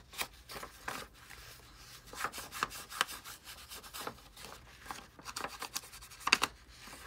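A round ink applicator being rubbed along the torn edges of ivory copy paper to age it. It makes a run of irregular short scratchy strokes, the loudest a little after six seconds in.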